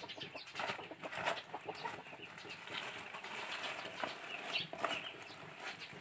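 Faint, irregular crinkling and rustling of a newspaper-print sack wrapped around a puyo (climbing perch), shaken and twisted to rub the fish's scales off.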